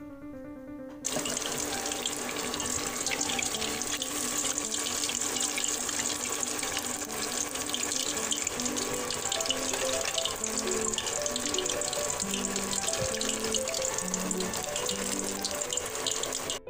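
Chicken pieces sizzling and crackling as they fry in hot oil in a stainless steel wok, starting abruptly about a second in. A melody of background music plays underneath.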